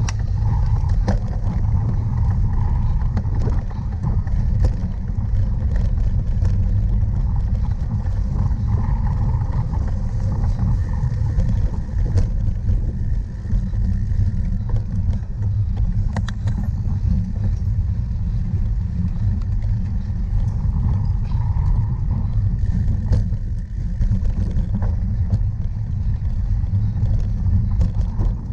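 Steady low wind rumble on the microphone of a camera riding along on a cyclocross bike, with scattered clicks and rattles from the bike over rough ground.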